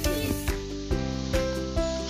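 Background music with a steady beat, over the sizzle of meat and sausages grilling over a fire. The sizzle cuts off about half a second in, leaving the music alone.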